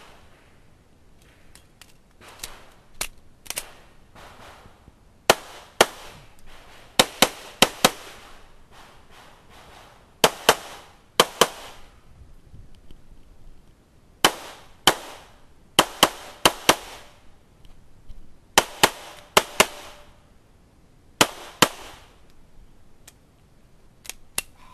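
Competition pistol shots fired in quick pairs and short strings, with gaps of a second or more between strings. Fainter shots come in the first few seconds.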